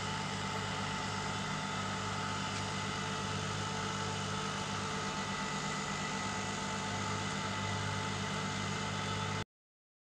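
Steady machine hum with several fixed tones running at an even level, cutting off suddenly near the end.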